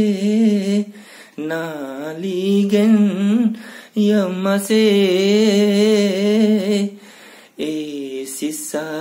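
A man singing a Limbu Hakpare Samlo unaccompanied, in a chant-like style. He sings about four phrases of long held notes with a wavering pitch, with short breaks for breath between them.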